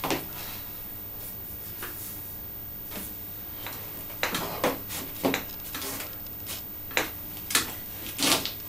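Scattered short knocks and clicks, with some rubbing, as a lifter settles onto a flat bench and takes his grip on a racked barbell. A handful come in quick clusters a few seconds in and again near the end, over a faint steady hum.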